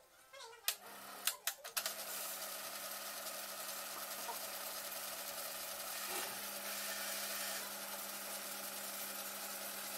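A few sharp clicks at the controls, then a Eumig R2000 film projector's mechanism starts about two seconds in and runs steadily with a constant hum, as its functions are tested after a service.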